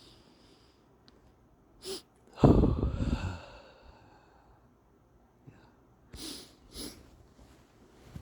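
A person sneezes once, loudly, about two and a half seconds in. Two short breath sounds follow about six and seven seconds in.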